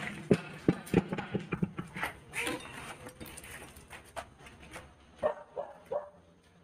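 A dog barking and yelping in short calls, several close together about five seconds in. A quick run of sharp knocks and clatters comes in the first two seconds.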